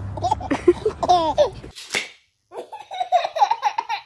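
Babies laughing in repeated bursts. The laughter breaks off at a cut just under two seconds in, and after a short silence a second baby starts laughing.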